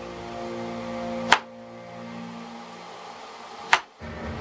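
Two sharp knocks about two and a half seconds apart: a handheld serrated slicer's blade striking the cutting board as it is pushed through a cooked beet. A steady mechanical hum runs underneath.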